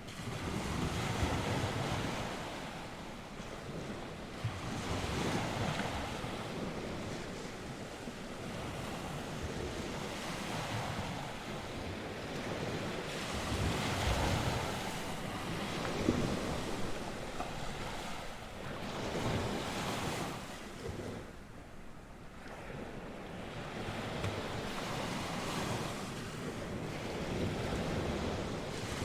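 North Sea surf breaking and washing ashore in repeated swells that rise and ease every few seconds, with coastal wind and wind rumbling on the microphone.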